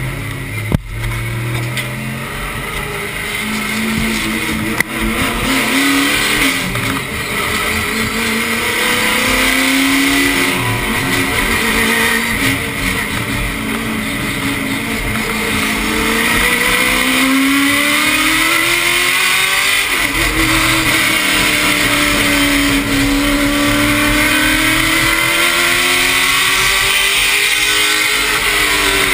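Late model stock car's V8 engine heard from inside the cockpit, running hard around a short oval track: its pitch repeatedly climbs on the straights and sags into the turns. Two sharp knocks in the first five seconds.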